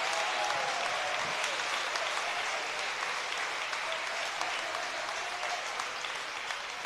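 Congregation applauding, with a few voices calling out faintly, the clapping slowly dying down.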